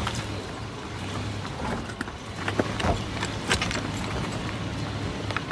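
A vehicle engine running steadily at low revs, with loose shale stones clicking and crunching a few times.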